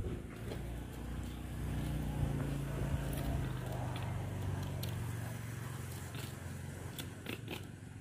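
A motor engine running steadily, swelling and then fading near the end, with light clicks and scrapes of a knife working along a large trevally on a wooden cutting board.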